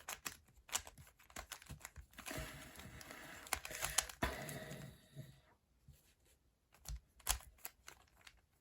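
Plastic pieces of a windmill cube clicking as the puzzle is handled and turned. There is a stretch of rustling and scraping in the middle and a couple of sharper clicks near the end.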